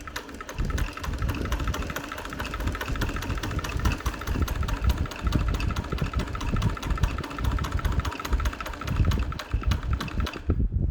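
Singer 328P sewing machine running steadily at speed, its needle ticking rapidly as it sews through four layers of cotton with no strain; it stops shortly before the end.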